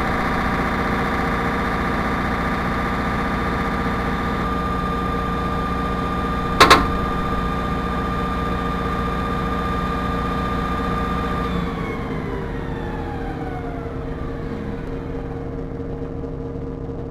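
Standby generator engines running steadily together, with a sharp double click about six and a half seconds in as the generator circuit breakers open, handing the load back to the utility. About twelve seconds in the engines begin to run down, their pitch falling and the sound growing quieter, as they come off line.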